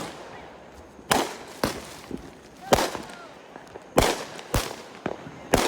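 Fireworks going off in a string of sharp bangs, about six of them, irregularly spaced a half second to a second and a half apart, each with a short echoing tail.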